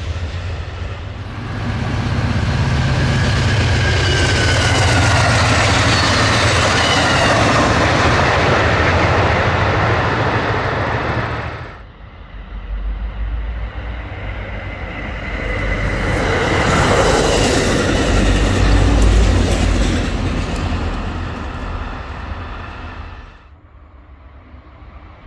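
Passenger train running on the rails: a loud rolling rumble with faint falling wheel-squeal lines, cut off abruptly about halfway through. A second stretch of rail noise then swells and fades away near the end.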